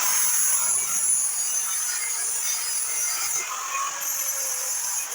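Angle grinder grinding steel, a loud, steady high-pitched grinding noise that starts abruptly just before and runs on without a break.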